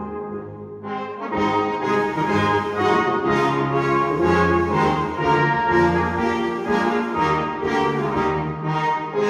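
Salvation Army brass band playing an air varié. A softer passage comes first, then the full band enters louder about a second in.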